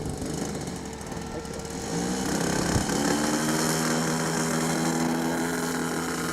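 MLD 35cc two-stroke petrol engine of a model aerobatic plane, turning a 20x8 propeller. It runs low and uneven, then revs up about two seconds in and holds a steady higher speed. There is a brief knock about three seconds in.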